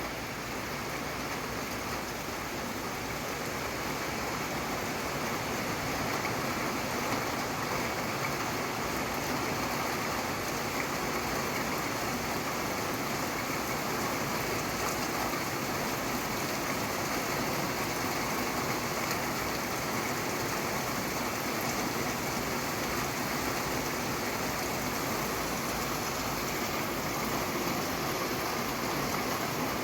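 Steady rain falling as an even, dense hiss, growing a little louder over the first few seconds.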